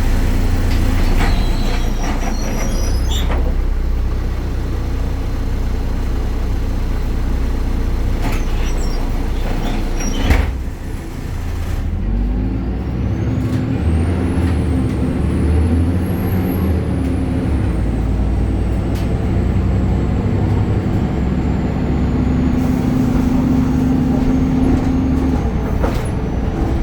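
BredaMenarini Avancity Plus city bus running, its Deutz Euro 5 diesel engine and ZF gearbox under way. About ten seconds in there is a brief sharp noise. Soon after, a high whine rises over a few seconds and then slowly falls away, over an engine note that rises and then holds.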